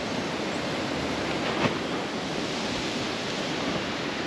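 Strong wind rushing steadily through the trees, with wind noise on the microphone and one brief knock about a second and a half in.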